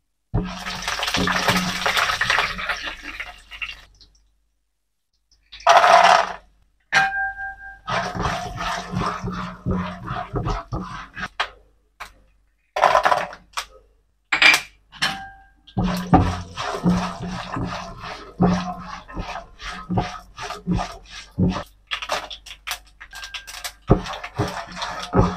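Dals, peanuts, cashews and dried red chillies frying in hot oil in a nonstick kadai: sizzling, with a spatula scraping and stirring against the pan, in stretches broken by short silent gaps. Two short beeps are heard, about a quarter and halfway through.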